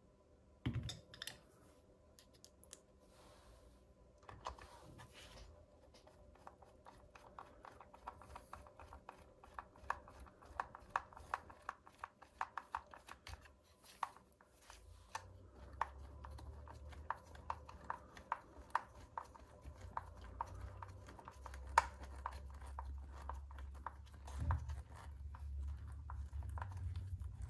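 Faint, scattered clicks and ticks of small plastic and metal RC-car parts being picked out of a plastic parts bag and fitted by hand, with some bag crinkling. A few sharper knocks stand out, and a low rumble of handling noise joins about halfway through.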